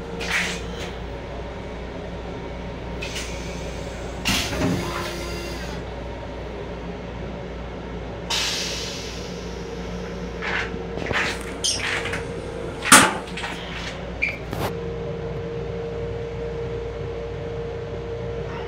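Steady running hum of an M7 commuter railcar heard from inside its small restroom, with scattered clicks and knocks throughout. A short hiss comes about four seconds in and another about eight seconds in, and the loudest knock lands about thirteen seconds in.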